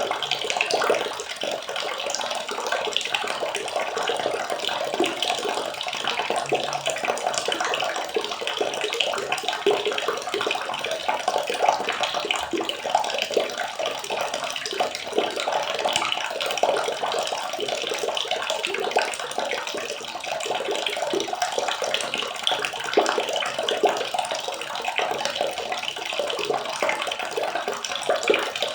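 Water running and splashing steadily, with a dense fine crackle and no pauses.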